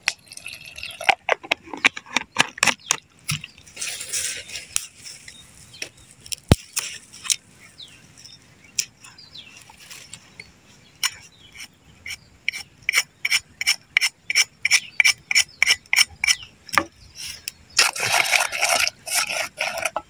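A wooden stick scraping and stirring around a metal pot, mixing flour and water into a dough in quick, regular strokes, after water is briefly poured in at the start.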